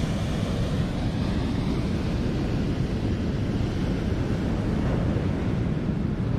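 Steady wind buffeting the microphone, mixed with ocean surf breaking on the shore.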